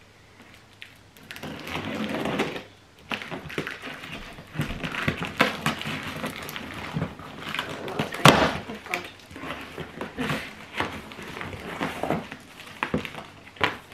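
Cardboard packing box being cut and torn open by hand: tape tearing, cardboard flaps scraping and knocking, with one loud knock a little after eight seconds.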